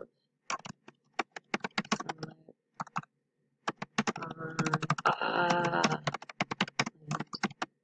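Typing on a computer keyboard: keys clicking in quick, irregular runs as words are typed. A voice is heard briefly about four seconds in, over the typing.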